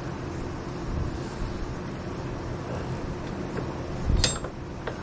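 Steady low hum in the background, with one sharp clunk about four seconds in as the front axle bolt of a Honda Reflex scooter is worked out through the fork and past its bushing.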